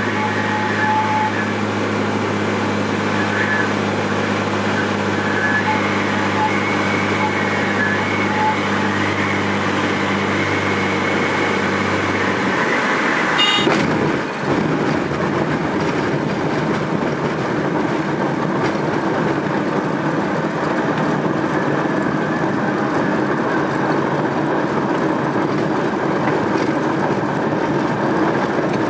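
Cessna 206's piston engine drones steadily at approach power, with a high horn-like tone sounding on and off. About twelve seconds in the engine note drops away as the power comes off, and a sharp thud marks a hard touchdown. After it comes a steady rumble and rattle of the wheels and airframe rolling over a very rough grass strip.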